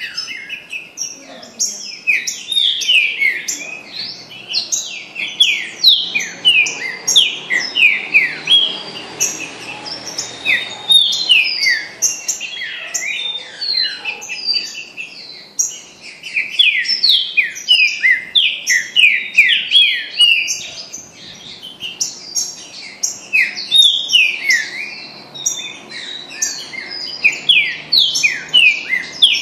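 Trinca-ferro (green-winged saltator) singing: a fast, continuous run of loud, quick falling whistled notes, with short breaks about halfway through and again about two-thirds of the way in.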